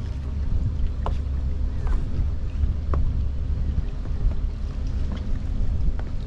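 Sailboat's inboard engine running steadily as the boat motors along, with some wind on the microphone.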